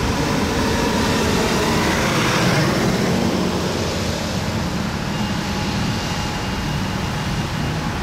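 Gillig BRT city bus driving through a turn on wet pavement, its engine running and its tyres hissing on the wet road, loudest about two to three seconds in, over a steady wash of rain.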